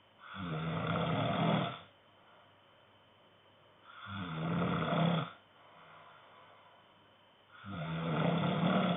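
A man snoring in his sleep: three long, loud snores about every three and a half seconds, each with a low rattle.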